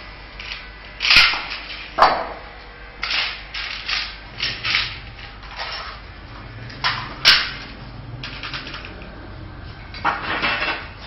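Metal clicks and knocks with scraping in between, from bolts and steel angle pieces being handled and fitted on a steel handloom frame. Three sharp clacks stand out: about a second in, about two seconds in, and about seven seconds in.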